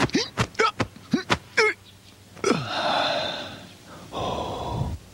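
A person's voice making a run of short, sharp sounds, followed by two long gasping breaths, the first opening with a falling pitch.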